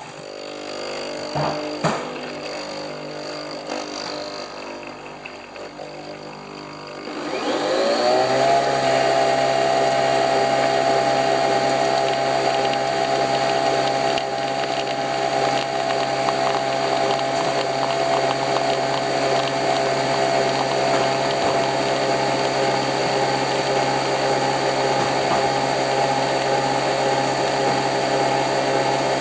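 Nespresso Vertuo capsule machine brewing. After a few quiet seconds with a click or two, the capsule spins up about seven seconds in with a rising whine. It then settles into a loud, steady whirring hum as the machine spins the pod to extract the coffee.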